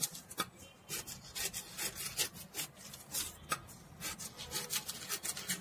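Scissors snipping slits into a paper pattern strip, and the paper rubbing and rustling on the table as it is handled and pressed flat: an irregular string of short snips and scrapes.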